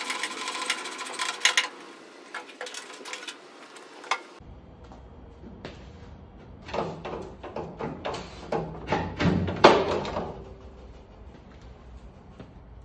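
Rusty steel front fender of a 1961 GMC 5000 truck being unbolted and pulled off: a few seconds of tool clicks and rattles, then a series of metal clanks and scrapes as the fender comes free, the loudest about ten seconds in.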